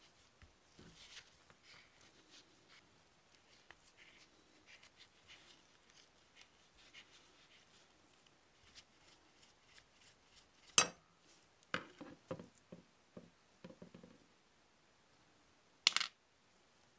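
Screwdriver tip scraping and clicking against small rusty cast-iron bank parts, faint and scattered at first. Then come loud, sharp metal clinks: one about eleven seconds in, followed by a quick run of lighter knocks, and another near the end as the loose parts are handled.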